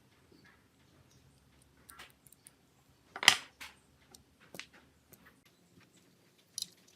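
Small clicks and light taps of phone parts and hand tools being handled, with one sharp, louder click about three seconds in and a bright click near the end.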